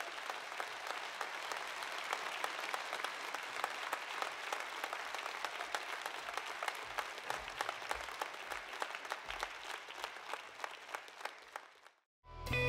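Concert audience applauding, a dense patter of clapping that thins out toward the end and stops abruptly about twelve seconds in. Music starts just before the end.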